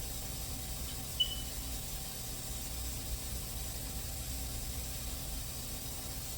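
Coolant-filling machine running as it fills a car's cooling system, with a steady hiss and a low hum, and a short high chirp about a second in.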